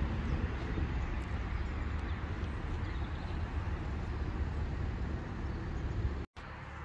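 Steady outdoor background noise with a strong low rumble. It breaks off abruptly near the end and comes back quieter.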